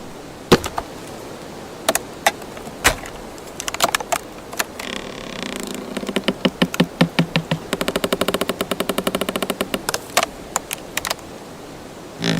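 Wood sound effects: a few sharp knocks and snaps, then a creak about five seconds in that turns into a fast, ratcheting run of creaking ticks for several seconds, followed by a few more snaps near the end.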